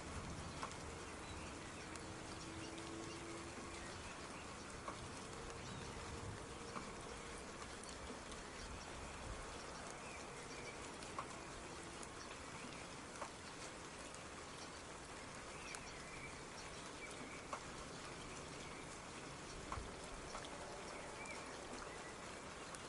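Soft, steady rain, with individual drops tapping now and then. Faint short chirps sound here and there above the patter.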